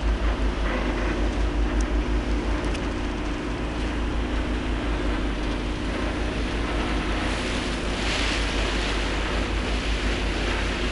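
A car ferry's engine running steadily at cruise, with a low rhythmic throb and a steady hum, under a rushing hiss of wind and water alongside the hull. The hiss swells briefly about eight seconds in.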